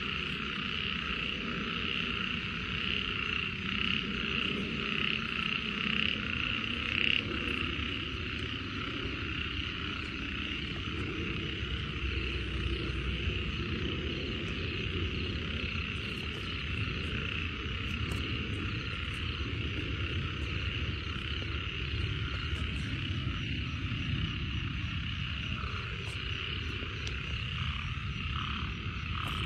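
A dense chorus of many frogs calling at once, steady and unbroken, over a low rumble.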